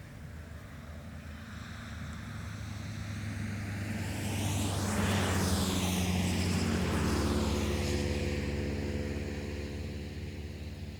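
A single vehicle drives past at speed on a main road. Tyre and engine noise swell to a peak about five seconds in, with a low engine hum that lingers, then fades as it moves away.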